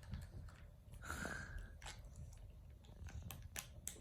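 Faint chewing and mouthing from dogs at rough play, with scattered soft clicks and a brief high squeak about a second in.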